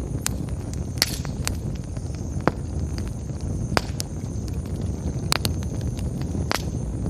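Wood campfire burning, with a steady low rush and sharp, irregular crackles and pops roughly every second.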